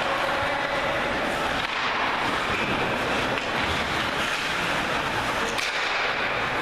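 Ice hockey rink ambience during a game: a steady wash of arena noise, with a faint knock about five and a half seconds in.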